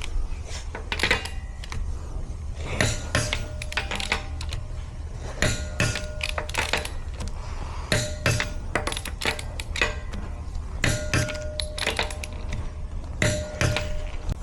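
Vehicle's rear brakes squealing: short high-pitched squeals that come and go several times, over a steady low rumble of the moving vehicle with scattered clicks and rattles.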